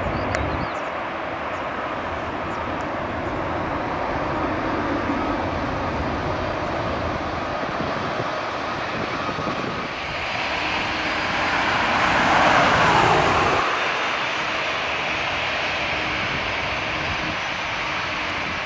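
Jet airliner engines heard across the airfield, a Boeing 737-800 among them. First a distant jet running with a low rumble, then a lighter engine noise with a louder swell a little past the middle that lasts about three seconds.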